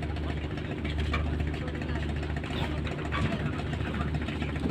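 Large ship's engine running with a steady low hum as the vessel comes in to dock.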